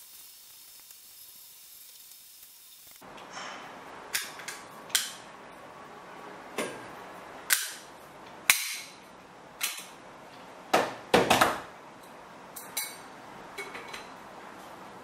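A faint hiss, then, from about three seconds in, a dozen or so sharp metallic clicks and knocks at uneven intervals as a brass tube and a tube cutter are worked and handled.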